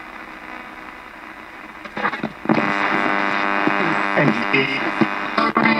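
Thomson portable radio used as a ghost box, sweeping through the AM band: about two seconds of steady static and hum, then louder choppy snatches of broadcast sound as it passes over stations.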